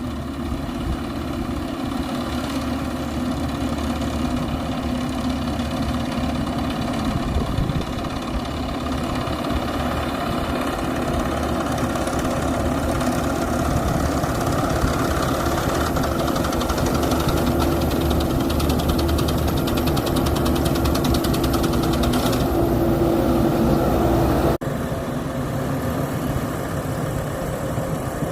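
Combine harvester's diesel engine and machinery running steadily, cutting rice. The sound changes abruptly and drops slightly near the end.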